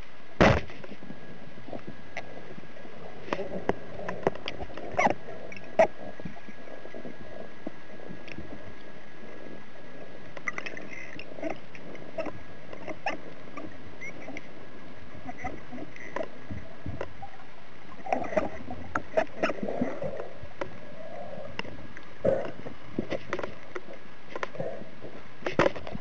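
Underwater sound through a diving camera's housing on a spearfishing dive: a loud sharp snap about half a second in, then scattered clicks, knocks and low wobbling sounds over a faint steady high whine, with another cluster of sharp clicks near the end.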